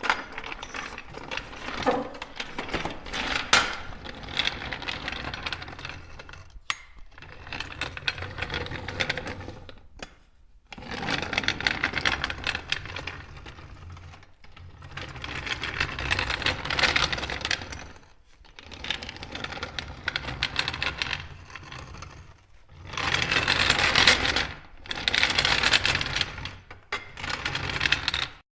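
Metal cart rolled on its wheels across a hard floor, its metal parts rattling and clattering continuously. It rolls in several passes of a few seconds each, with brief pauses between them; the last passes are the loudest.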